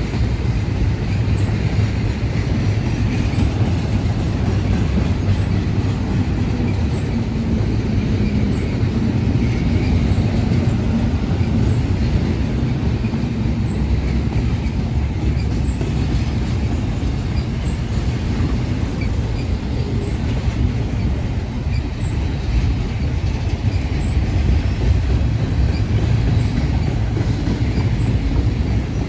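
Union Pacific intermodal freight train rolling past, its cars' steel wheels making a steady low rumble on the rails.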